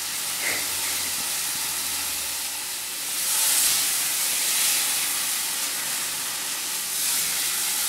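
A seasoned whole rabbit sizzling as it browns in a frying pan. The hiss swells about three seconds in and eases again near the end.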